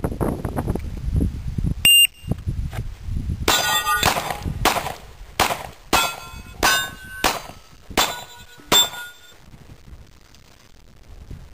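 Handgun fired at steel plates, each hit making the steel clang and ring. There are about nine shots in a quick string, roughly two-thirds of a second apart; the first, about two seconds in, is the loudest.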